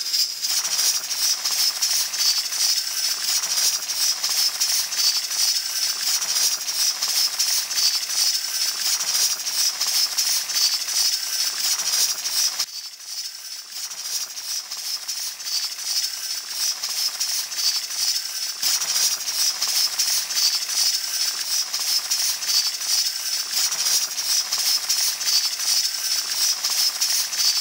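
Braised yellow croaker stew boiling hard in a stainless steel pot, a dense, steady crackle and bubble. It drops away briefly about halfway through, then comes back.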